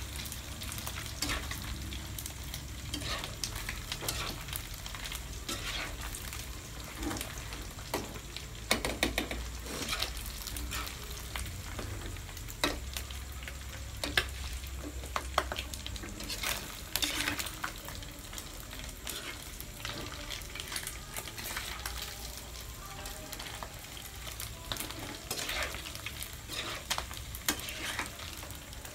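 Chicharon bulaklak (pork mesentery) frying in hot oil in a pan, sizzling steadily with frequent sharp pops. A metal spatula stirs and scrapes through the pieces.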